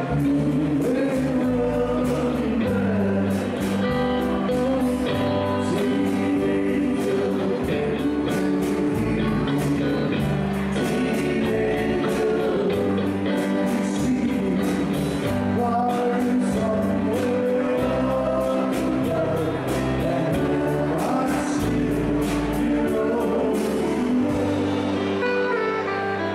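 Live band playing a rhythm-and-blues song with electric guitar, bass and drums keeping a steady beat, and a voice singing.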